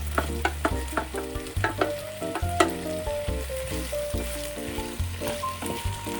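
Chicken and zucchini sizzling as they are stir-fried in a pan, with repeated sharp clicks of a utensil stirring against the pan. Background music plays along.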